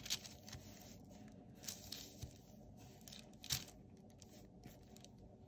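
Faint rustling and crinkling of a thin translucent sticker sheet and paper being handled and pressed flat onto planner pages by hand, with a few soft taps, the clearest about three and a half seconds in.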